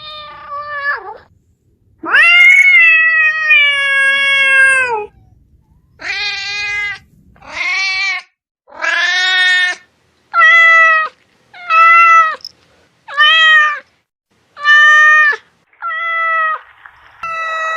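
Domestic cat meowing repeatedly: a short meow, then one long drawn-out meow about two seconds in, followed by a run of about nine shorter meows at fairly even spacing.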